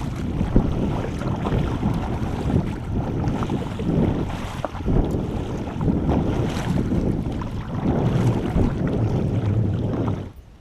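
Wind buffeting the microphone over water sloshing around a kayak under way, swelling every couple of seconds; the sound drops away sharply near the end.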